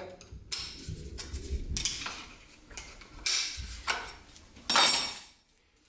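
Aluminium wrench working a suspension fork's top cap loose: metallic clinks and scrapes in several short spells, then the sound cuts off abruptly near the end.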